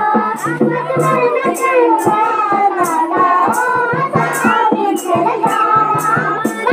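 Girls' voices singing a Pangwali nati folk song through a PA, over a sharp percussive beat about twice a second.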